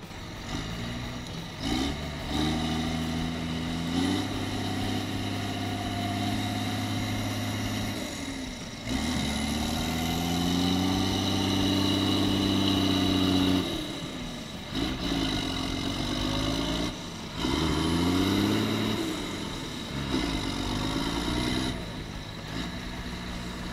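John Deere 4455 tractor's six-cylinder diesel engine working hard as the mud-stuck tractor tries to free itself. It runs steadily at first, climbs and holds high revs about halfway through, then revs up and drops back several times in quick succession.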